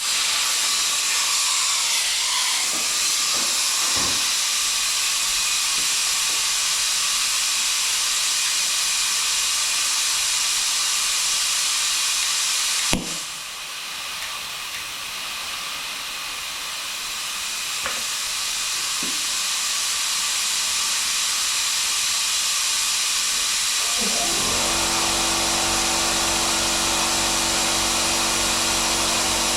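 Steady hiss of a gas torch flame heating a spot in the sheet-metal fender to shrink out an oil-canning bulge. A sharp click comes about halfway through, and a motor starts with a steady hum a few seconds before the end.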